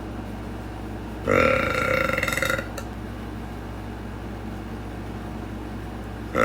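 A woman's long, loud burp held at a steady pitch for just over a second, about a second in, with a second burp starting right at the end. The burping is put down to acid reflux.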